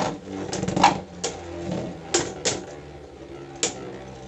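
Two Beyblade Burst GT tops, Wizard Fafnir and Ace Dragon, spinning in a plastic stadium and clashing, a string of irregular sharp clicks as they collide, over faint background music.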